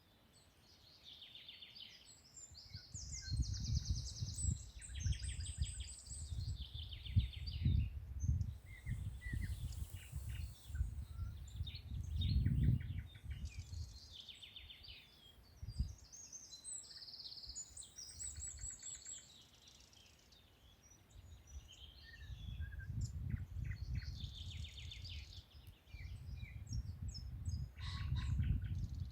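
Several songbirds singing and chirping in a spring forest, with short repeated phrases and trills overlapping one another. Under the birdsong a low, uneven rumble swells and fades twice, and it is the loudest part of the sound.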